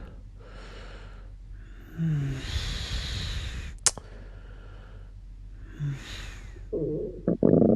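Breathing close to a microphone: three slow breaths with a soft voiced sigh, and a sharp click a little before four seconds in. Near the end a loud low rumbling starts up.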